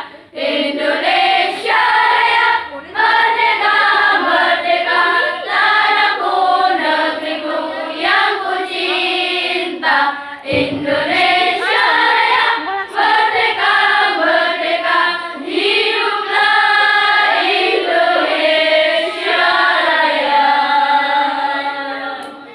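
Young girls' voices singing a song, phrase after phrase with short breaks between, fading away near the end. A dull thump is heard about ten and a half seconds in.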